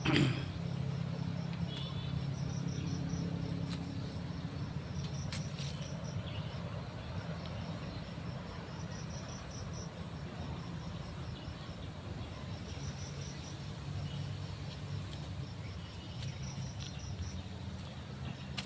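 Insects chirping in short trains of rapid high-pitched pulses that repeat every few seconds, over a steady low motor hum.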